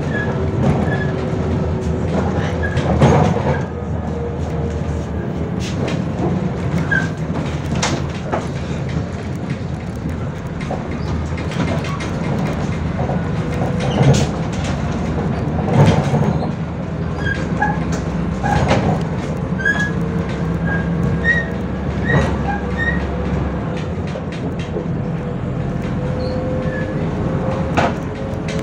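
MAZ 105.065 articulated city bus on the move, heard from inside the cabin: a steady low drone of engine and drivetrain, with frequent knocks and rattles from the body and short high squeaks. The lowest part of the drone drops away about three-quarters of the way through.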